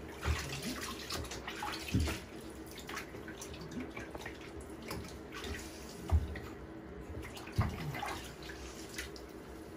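Small irregular splashes and drips of bathwater in a plastic infant bathtub as a hand scoops water over a baby, with a few soft low bumps.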